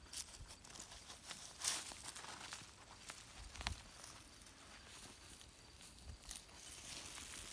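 Rustling and crinkling with scuffing steps and a few short knocks, as of someone working among dry plants and soil while harvesting.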